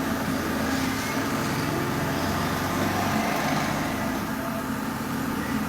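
IPSO washing machine spinning at full spin speed: the drum and motor give a steady whirring hum with a constant tone.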